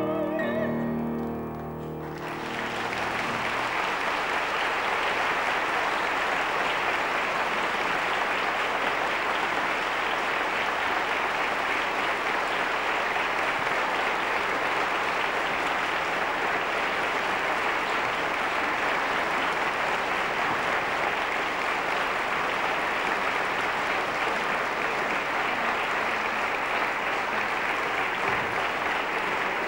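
A woman's final sung note with piano, held with vibrato, ends about two seconds in, and then an audience applauds steadily.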